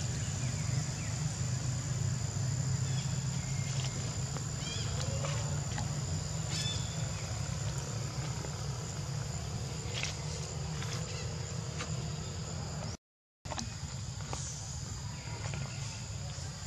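Outdoor ambience: a steady high-pitched drone over a low rumble, broken by scattered short chirps and clicks. The sound cuts out completely for about half a second near the end.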